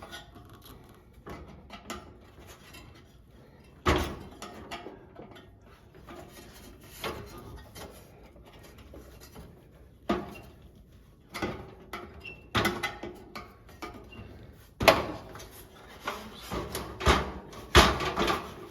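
Scattered clicks and knocks of hands working the electric eye (flame-sensing photocell) out of a kerosene torpedo heater, with sharper knocks about four seconds in and again near the end.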